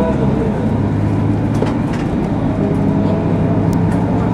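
Cabin sound of a Mercedes-Benz OC500LE city bus under way: a steady low drone from the engine and drivetrain, with a faint whine that drifts slightly upward in pitch and a few light rattling clicks.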